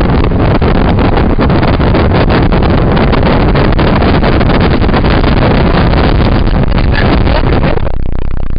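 Road, engine and wind noise inside a vehicle's cabin as it drives fast, loud and harsh, with many short crackles through it. The hiss drops away suddenly near the end, leaving a low rumble.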